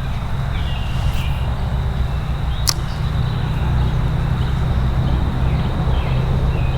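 An ultralight spinning rod being cast: a swish and a sharp click about three seconds in, over a steady low rumble and a running-water hiss.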